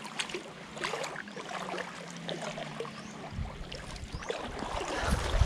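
Shallow water splashing and lapping at the shore as a hooked fish is reeled in on a spinning rod, with scattered light clicks. A low rumble sets in about three seconds in and grows louder near the end.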